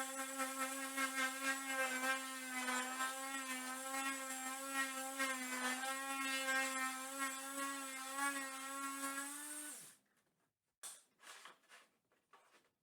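CNC router spindle whining at a steady high speed, then switching off about ten seconds in, its pitch falling quickly as it stops. A few faint short knocks follow.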